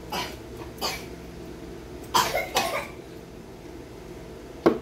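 A woman coughing in short, separate coughs, about four of them, with a sharp knock near the end.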